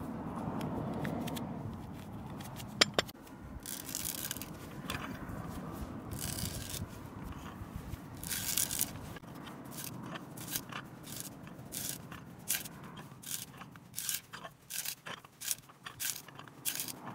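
Hand auger drill bit, turned by a wooden T-handle, boring into the end grain of a log: repeated crisp crunching, scraping cuts of wood fibre, coming faster and more regular in the second half. A single sharp click about three seconds in.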